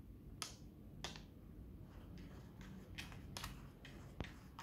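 Light plastic clicks and taps from handling a DJI Osmo Mobile 3 folding smartphone gimbal, about six short clicks at uneven intervals.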